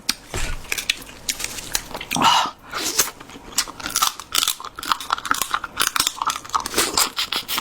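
Close-miked eating: biting and chewing a seafood leg, with an irregular run of sharp crunches and cracks from the shell.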